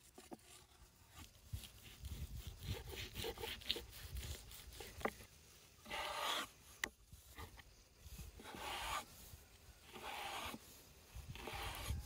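Cleaver-style chef's knife slicing through raw meat on a wooden cutting board, with light knocks of the blade on the board. The second half holds a series of short rasping cut strokes, one every second and a half or so.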